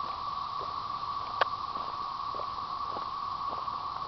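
Steady droning chorus of periodical cicadas, one even buzz throughout. Footsteps tick faintly beneath it, with a sharp click about a second and a half in.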